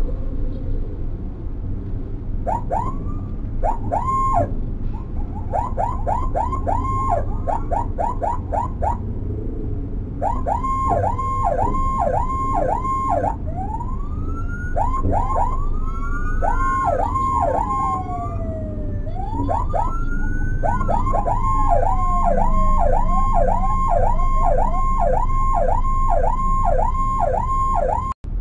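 Electronic emergency-vehicle sirens in a fast, repeated up-and-down yelp, starting a couple of seconds in and pausing briefly around the middle. A slower rising-and-falling wail overlaps twice. Under them runs the steady rumble of vehicle engines and road.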